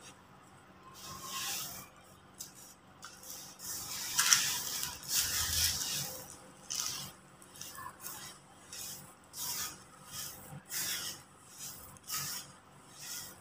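Dry crumbled yellow earth being squeezed and dropped by hand: gritty crunching and sifting rustles in short bursts. A large handful falls in a longer, louder pour about four seconds in, and shorter crunches follow about once a second.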